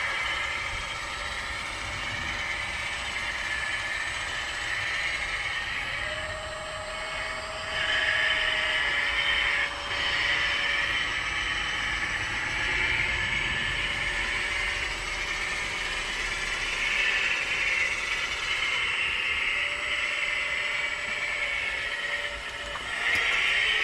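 Radio-controlled model construction machines working: small electric motors and gearboxes whining, swelling and easing in stretches, with a thin steady tone that comes in twice for a few seconds.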